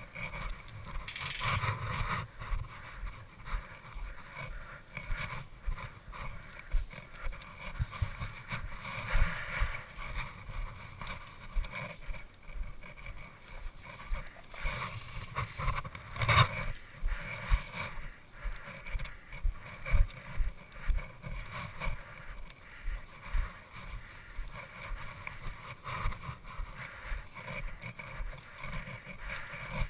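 Irregular low thumps and rustling from footsteps and gear moving against a body-mounted action camera, with a sharper knock about 16 seconds in.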